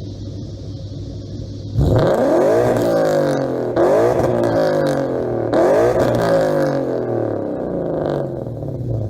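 Ford Mustang 5.0 Coyote V8 with a modified, muffler-deleted exhaust idling, then revved three times in quick succession, each rev falling away before the next. It settles back to a steady idle near the end.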